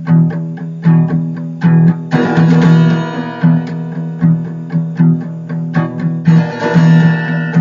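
Background music played on guitar: regularly plucked notes over a steady bass line, with two fuller strummed passages, one about two seconds in and one near the end.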